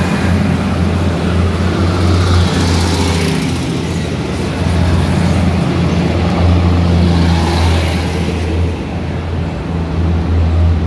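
Steady low rumble of a heavy vehicle running, with a rush of noise that swells and fades twice.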